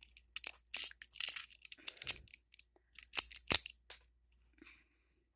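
A quick run of clicks, scrapes and rasps from handling a cheap stainless-steel and plastic switchblade comb close to the microphone, stopping about four seconds in.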